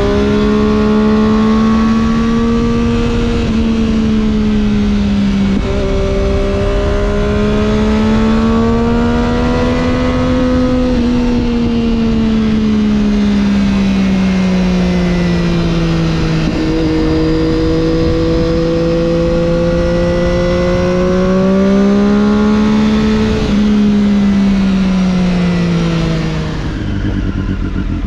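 Triumph Daytona 675's inline three-cylinder engine with an Arrow exhaust under way, its pitch slowly rising and falling with a few sudden steps as gears change. Near the end the revs drop and it settles lower and quieter. Wind rushes over the action camera's microphone throughout.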